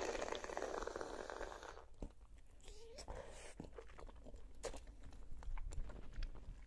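Close-miked eating of a boiled khinkali: a dense, wet chewing and sucking noise for about the first two seconds, then sparse soft mouth clicks and smacks as the chewing goes on.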